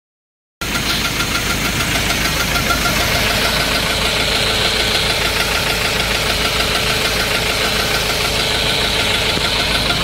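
Car engine running steadily with a rhythmic knock from inside the engine, heard close up from beneath the block.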